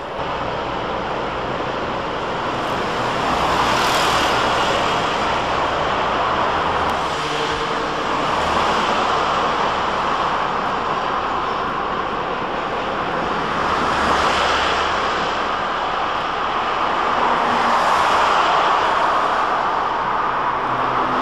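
Road traffic: cars passing one after another, the tyre and engine noise swelling and fading every few seconds.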